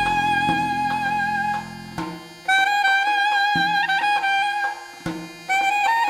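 Instrumental background music: a slow melody of long, held, lightly ornamented notes on a single melodic instrument, with short breaks between phrases.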